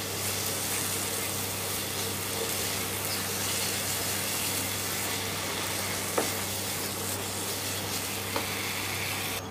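Thick grated-carrot halwa sizzling in ghee in a nonstick pan while a wooden spatula stirs and scrapes it, as a steady hiss over a low steady hum. Two light ticks come about six and eight seconds in.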